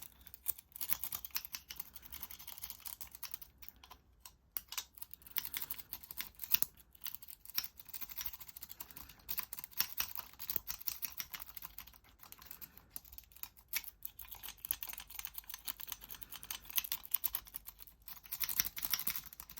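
Rapid, irregular metallic clicking and scraping of a lock pick raking inside a Master Lock 40D disc padlock.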